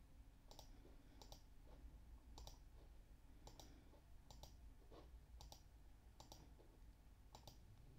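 Faint computer mouse clicks, mostly in quick pairs about once a second, as objects are Shift-clicked one by one to add them to a selection.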